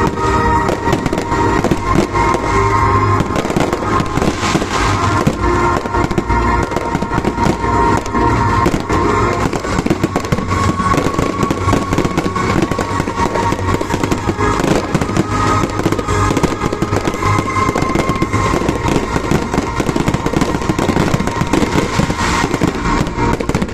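Dense barrage of fireworks going off, with rapid, overlapping bangs and crackling that barely let up.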